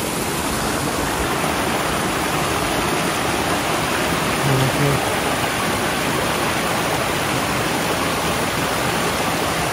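A small waterfall, more a cascade, with water falling and flowing over it in an even, steady sound.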